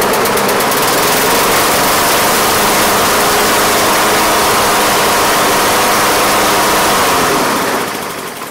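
Honda GCV160 single-cylinder lawn mower engine running steadily, then shutting off and winding down near the end.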